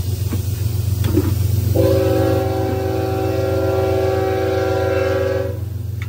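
A horn sounds one loud, sustained chord of several tones for about four seconds, starting about two seconds in and cutting off abruptly, over a steady low hum.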